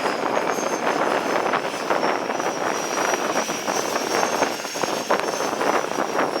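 Seaplane's propeller engines running loud and steady: a dense rush with a thin high whine above it.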